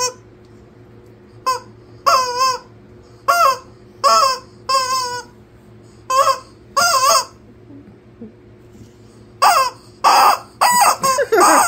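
A rubber chicken squeaky toy squawks as a dog bites down on it: a string of about ten loud, wavering honks with short gaps between them.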